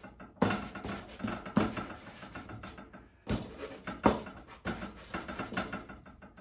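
Dry pastel stick scratching and rubbing across Stonehenge drawing paper in short, irregular strokes, with a brief pause about three seconds in.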